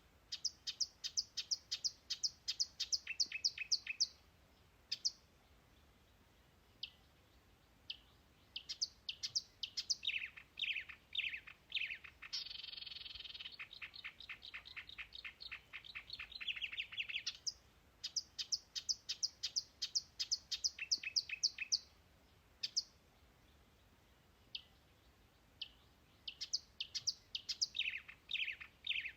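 A songbird singing phrases of rapid high chirps, some followed by a run of falling slurred notes or a long buzzy trill, with pauses of a few seconds between phrases.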